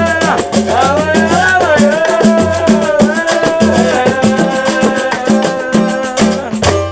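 Upbeat Latin-style band music with a steady percussion beat, shaker and bass under a melody line, cutting off suddenly near the end.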